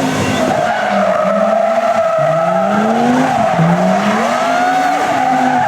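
Historic rally car engine revving, its note climbing twice in succession, over a steady squeal of tyres spinning and sliding on tarmac.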